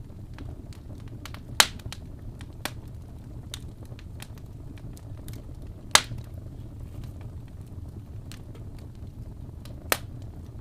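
Wood fire burning with a low steady rumble of flame and scattered crackles, three sharp pops standing out: one about a second and a half in, one near the middle and one near the end.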